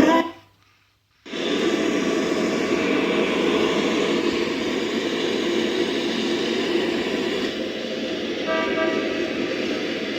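Sony BSP60 Bluetooth speaker playing back test audio: the sung track cuts off, about a second of silence follows, then a steady, dense rushing noise starts, with a few faint held tones near the end.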